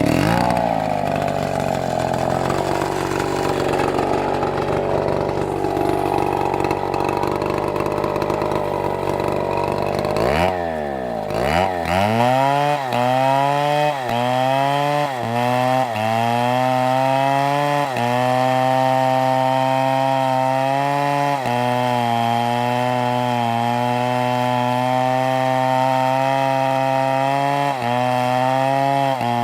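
Two-stroke chainsaw cutting through oak, running under load with a rough, noisy sound. A little over a third of the way in, the engine pitch drops and climbs back. From then on it holds a steady high note with brief dips and quick recoveries every second or two.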